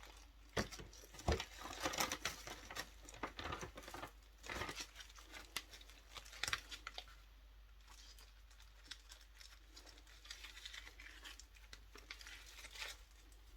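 Wet-wipes packet crinkling as wipes are pulled out and used, with small taps and clicks of handling. Busy for the first half, then fainter rustling.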